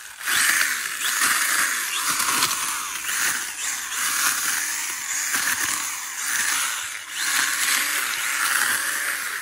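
Small handheld mini chainsaw running and cutting through low, leafy ground-cover stems: a continuous high buzzing rasp that swells and eases as the saw is swept back and forth, with a brief dip about seven seconds in.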